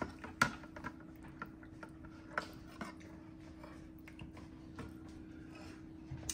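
Metal spoon clinking against a ceramic soup bowl: a sharp clink about half a second in, then a few lighter clicks, over a faint steady hum.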